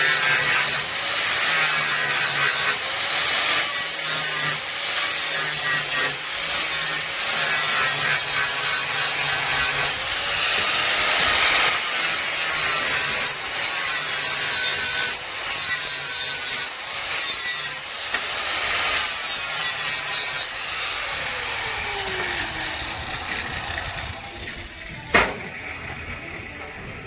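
Angle grinder trimming a plasma-cut steel end smooth, running under load in repeated passes with short breaks. Near the end it is switched off and winds down with a falling whine, followed by a single sharp knock.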